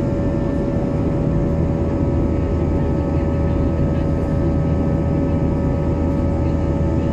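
Cabin noise of an Airbus A320-family airliner climbing after take-off: the jet engines' steady roar with a constant hum and several steady whining tones over it.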